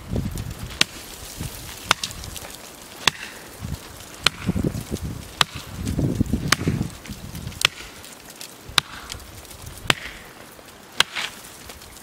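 Axe chopping into the trunk of a standing tree whose wood is partly punky: about ten sharp strikes, a little over a second apart, in a steady rhythm.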